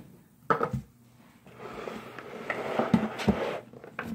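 Things being handled and knocked on a tabletop: a sharp knock about half a second in, then about two seconds of clattering and rummaging with two more knocks near the three-second mark.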